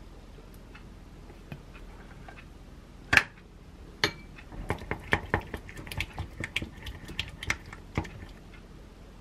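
Utensils knocking against a glass mixing bowl: one sharp clink about three seconds in, then a quick run of clicks and taps as a wooden spatula and a metal spoon stir a thick sauce in the bowl.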